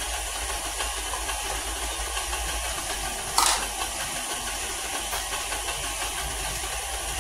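KitchenAid Classic stand mixer's motor running steadily as its beater churns cake batter in a stainless steel bowl. A single sharp knock sounds about three and a half seconds in.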